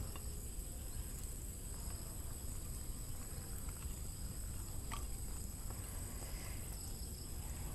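Steady outdoor ambience: a continuous high-pitched insect drone over a low wind rumble, with a faint tick about five seconds in.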